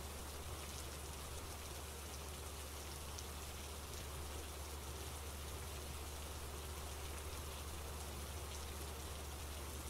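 Steady rain falling, an even patter with no breaks, over a constant low hum.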